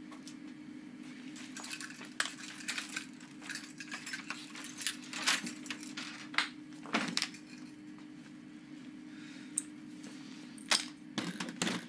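Small hard objects clicking, clinking and rattling as hands rummage through things on a desk, busy for the first several seconds, then a few separate sharper knocks near the end.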